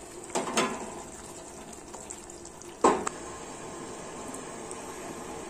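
Fish curry simmering in a pan with a steady low sizzle. There are two knocks about half a second in, then a sharp clank as a glass lid is set on the pan just before three seconds.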